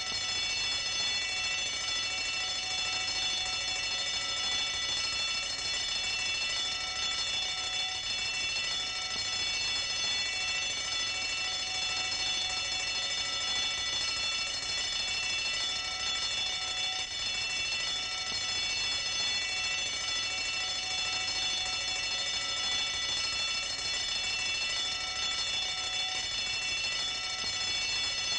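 Bell ringing continuously without a break, many high tones sounding together at a steady level.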